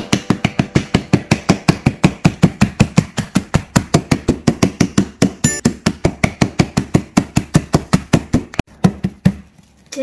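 A metal spoon rapidly striking biscuits inside a plastic zip bag on a cutting board, crushing them to crumbs. About five sharp taps a second, which stop shortly before the end.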